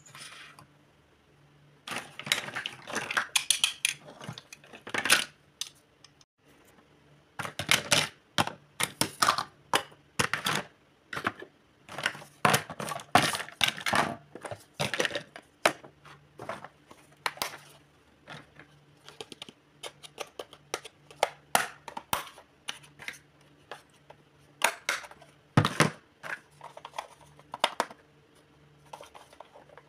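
Small hard plastic toy-kitchen pieces clicking and clattering against each other as they are picked up, sorted and set down, in quick irregular taps with brief pauses.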